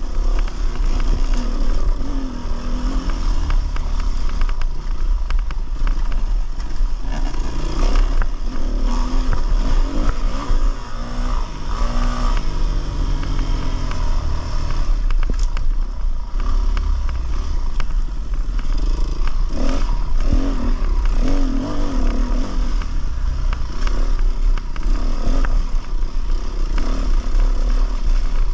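Dirt bike engine revving up and down on a rocky trail climb, with wind buffeting the microphone and rocks and the bike clattering over rough ground.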